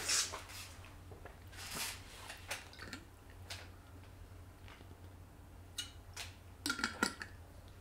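Faint scattered clicks and rustles over a steady low hum, with a short cluster of them near the end.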